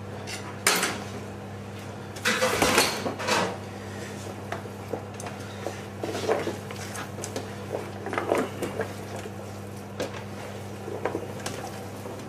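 Stainless-steel hotel pans being shifted on a steel worktop: a sharp clank under a second in, then a louder scraping clatter for about a second and a half, followed by scattered light knocks and rustles as hands work raw chicken pieces into the vegetables. A steady low hum runs underneath.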